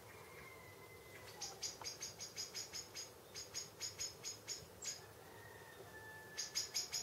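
Small songbird giving a rapid series of short, high chip notes, about five a second for several seconds, then a second quick run near the end, over a faint thin whistle.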